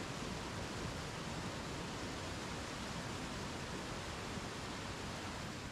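Steady rushing noise of high, fast-flowing floodwater from a creek swollen by spring melt and ice.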